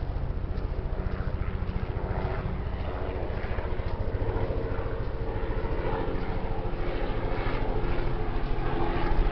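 An engine running with a steady low drone and a fast, even throb, growing slightly louder.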